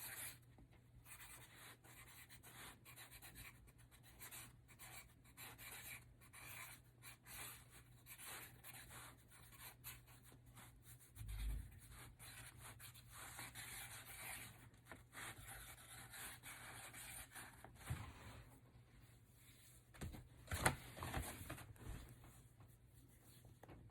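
Sharpie marker drawing on paper: a continuous run of short, quick strokes with brief gaps. A low bump comes about halfway through and a sharper knock near the end.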